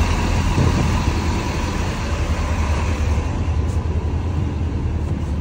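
Steady low rumble of idling bus engines among parked buses, heard from beside them and then from inside one.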